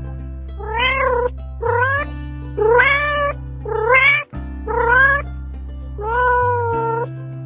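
A cat meowing six times in a row, each meow rising then falling in pitch, the last one longer and held more level, over background music with sustained low notes.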